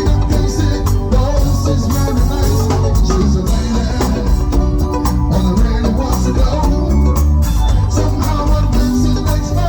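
Music: an up-tempo band track with a strong bass line, steady drum beat and an organ-like keyboard, with singing.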